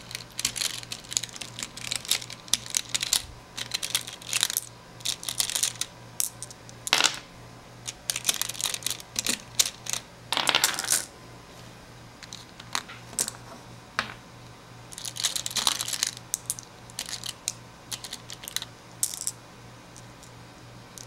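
Six-sided dice clicking and clattering against each other and the table as a handful is gathered and counted out. The clicks come in irregular clusters, thinning out in the last few seconds.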